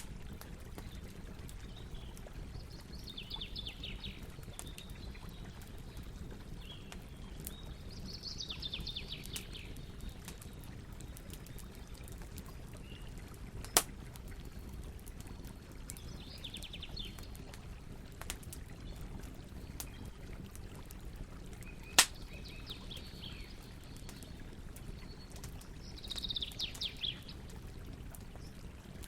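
Campfire burning with a steady low rush and two sharp pops, while a songbird sings short, quick trilled phrases every few seconds.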